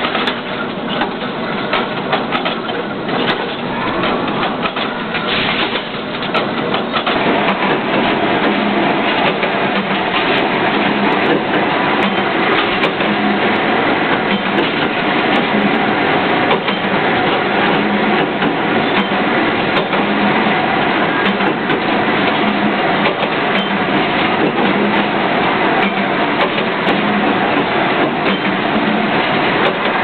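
Loud, steady machinery din of a hot-forging shop, with a natural-gas billet-heating furnace and forging presses running. Clattering knocks fill the first several seconds, then the noise settles into a steadier run.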